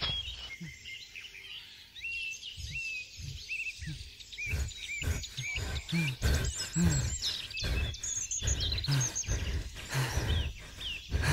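Birds chirping repeatedly in woodland, short rising and falling calls throughout. From about halfway through, short low voice sounds and soft knocks join in.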